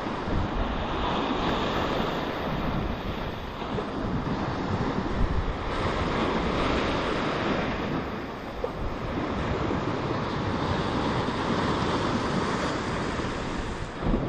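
Sea surf washing in over a rocky shelf and sand at the shoreline, swelling and easing every few seconds as each wave breaks and runs up, with wind buffeting the microphone.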